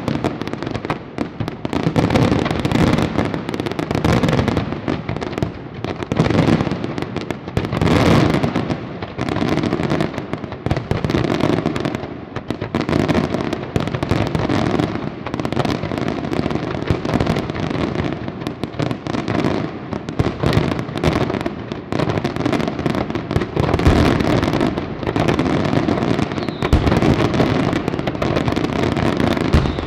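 Professional fireworks display: aerial shells and low-level effects bursting over one another in a continuous barrage, with no break.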